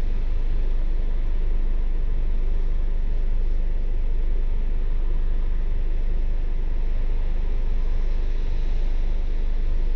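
Double-decker bus engine idling steadily while the bus stands still, heard from inside on the upper deck as an even noise weighted toward the low end.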